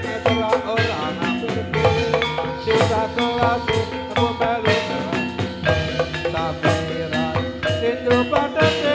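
Javanese gedruk dance accompaniment: gamelan-style music of mallet-struck tuned percussion playing busy interlocking notes over a steady drum rhythm.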